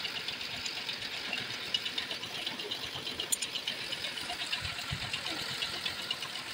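Hino straight-six diesel engine running with a fast, even clatter, while fuel sprays from the loosened fittings at its injection pump.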